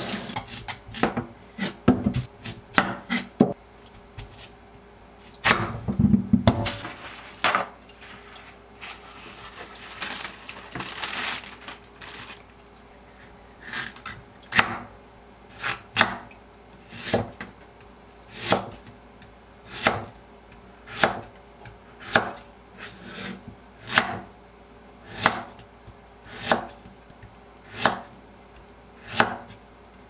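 Kitchen knife slicing a peeled Korean radish on a wooden cutting board: after a few irregular knocks in the first seven seconds, steady single strokes through the radish onto the board, about one every second and a quarter.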